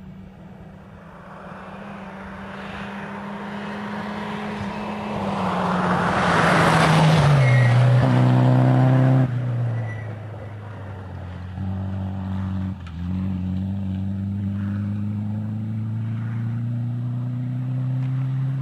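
A rally car's engine at full throttle on a gravel stage, growing louder as it closes in. It passes close, loudest with a rush of gravel and tyre noise, and its pitch falls as it goes by. After a sudden change a rally car's engine runs on steadily, with two short dips, like lifts or gear changes, a few seconds apart.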